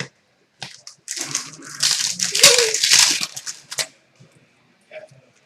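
Crinkling of a hockey card pack wrapper being handled, loudest for about two and a half seconds near the middle, with a few short clicks before and after.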